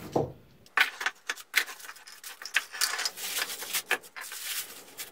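A plastic bag crinkles as it is pulled off a glued-up block of hardwood strips, mixed with sharp clicks and light knocks as the bar clamps and wood pieces are handled on the bench.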